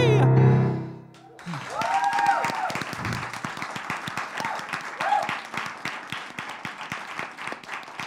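A man's last held sung note, with vibrato, over keyboard accompaniment ends about a second in. An audience then breaks into steady applause, with a couple of whoops.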